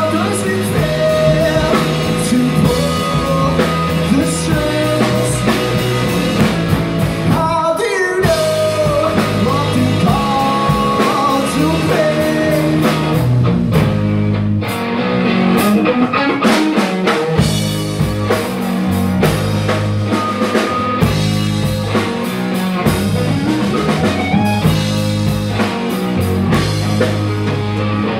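Live rock band playing: an electric guitar, a bass guitar and a drum kit going together without a break.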